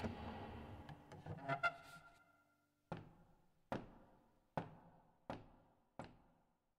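Someone rising from a piano bench with a rustle and a few creaks and clicks, then six footsteps on a wooden stage floor, about one every three-quarters of a second, each echoing in the hall.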